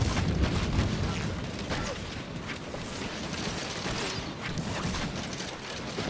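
Layered battle sound effects: scattered gunshots, booms and crashes over a steady low rumble.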